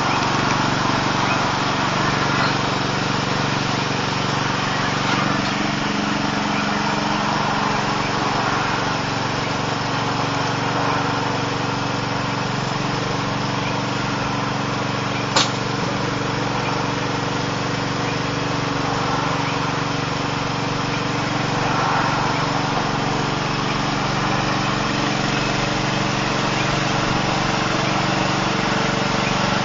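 Riding lawn mower's small engine running steadily, with one sharp click about halfway through.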